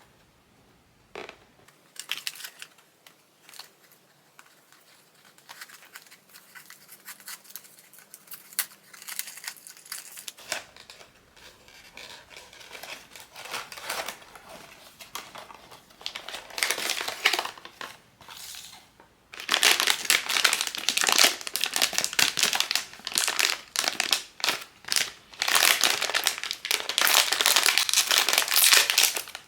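Blind box packaging being opened by hand, with plastic wrapping crinkling and tearing. The crackles and clicks are sparse at first, then from about two-thirds of the way in the crinkling becomes loud and continuous.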